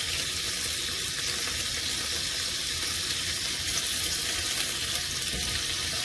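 Sliced onions frying in a hot heavy-duty pan: a steady sizzle with small crackles and pops.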